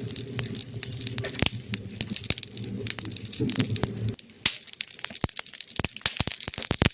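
Wood fire crackling with many sharp pops, the loudest about four and a half seconds in. A low rumble under the crackles stops abruptly about four seconds in.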